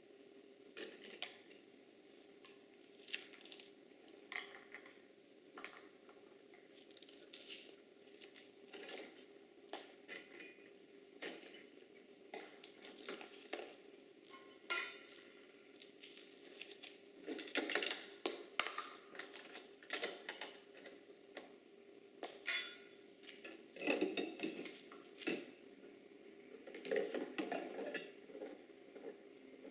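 Plastic toy teapot, cups and dishes clicking and clattering as a toddler handles them: irregular light knocks, with a few louder flurries in the middle and near the end.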